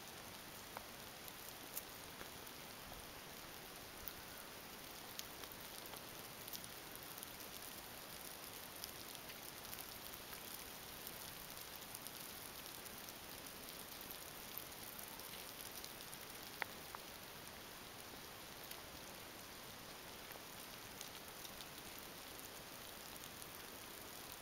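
Faint steady hiss of quiet outdoor ambience, with scattered soft clicks and one sharper click about sixteen seconds in.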